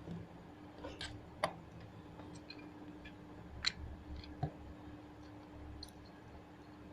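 Scattered light clicks and taps, about five over several seconds, from the small plastic parts of a cordless trimmer being handled during disassembly, over a faint steady hum.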